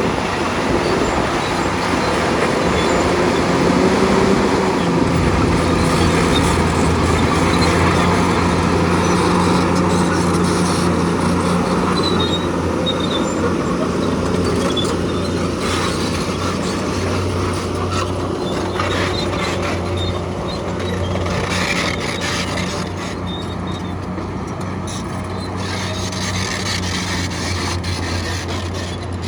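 Diesel engine of a heavy construction machine running steadily at a constant pitch, with scattered knocks and rattles over its noise.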